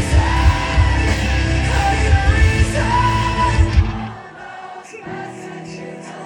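Rock band playing live at full volume, with heavy drums and bass and a sung vocal line. About four seconds in, the drums and bass drop out, leaving quieter held notes.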